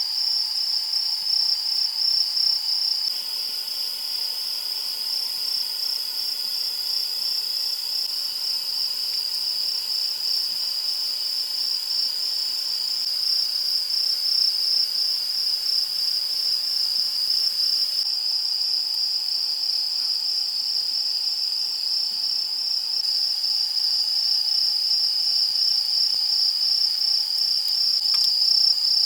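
Crickets chirping in a steady, fast-pulsing high trill that never stops.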